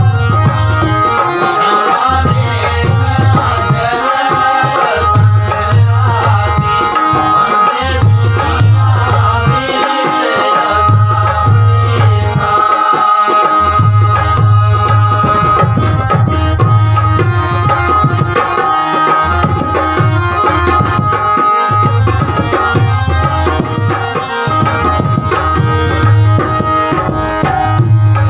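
A male voice singing a devotional kalam over a hand drum that keeps up a steady rhythm of deep strokes.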